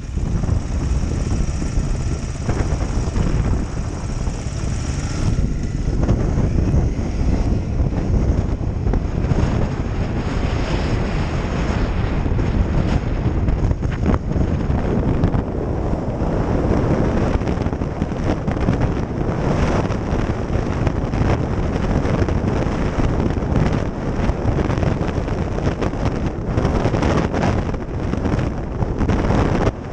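Trail motorcycle engine running as the bike rides along, heard from a helmet-mounted camera, with wind buffeting the microphone.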